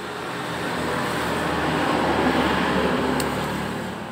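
A road vehicle passing by: its noise swells to a peak about two seconds in and then fades away.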